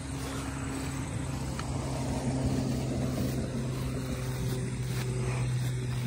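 Steady low mechanical drone, like an engine or motor running at a constant speed.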